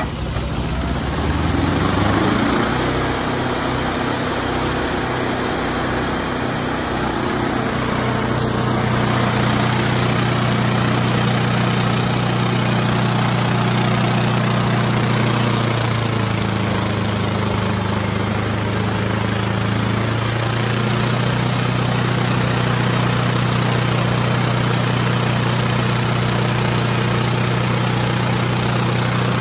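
Wood-Mizer LT28 portable band sawmill's engine running under load as the band blade saws a board off a log; its pitch rises over the first couple of seconds and then holds steady.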